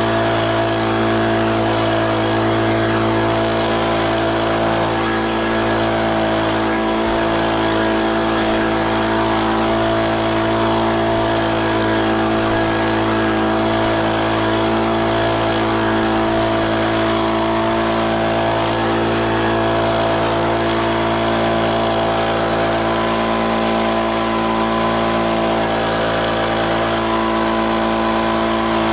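Leaf blower running at a steady speed, a constant engine drone with no change in pitch.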